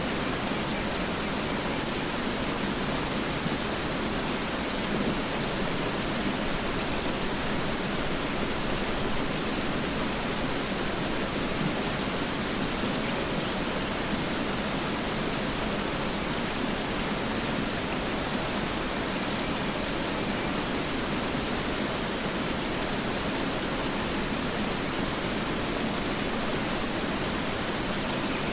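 Mountain river rushing steadily over rocks: a constant, even wash of water noise with no change in level.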